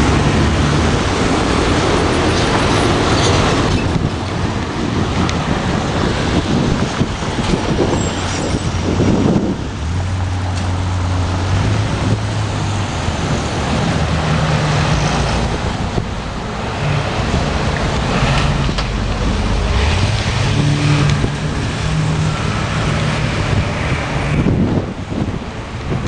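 Street traffic: cars and trucks passing at a road junction, with engine hum coming and going several times over a steady rush of road noise.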